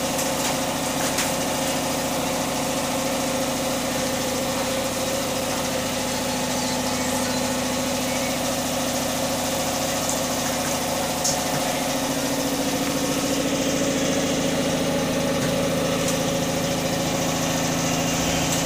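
Steady hum of a running motor or engine, its low pitch shifting slightly about twelve seconds in.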